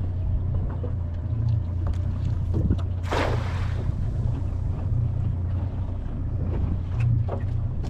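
A cast net thrown from the boat's bow lands on the water about three seconds in, a short splashing hiss, over the steady low hum of the boat's idling motor.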